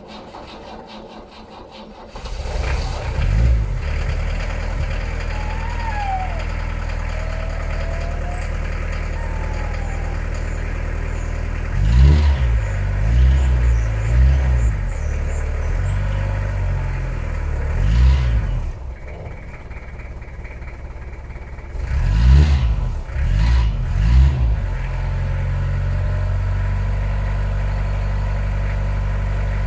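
Bedford van engine starting after months laid up: it catches about two seconds in, then runs at a steady idle. Several blips of the throttle send the revs up and down in the middle and again near the end.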